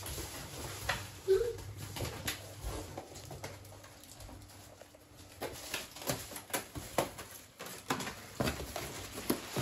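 Handling noise: a cardboard box and plastic bags shifted about on a kitchen counter, giving scattered knocks and rustles, the sharpest knock about a second in.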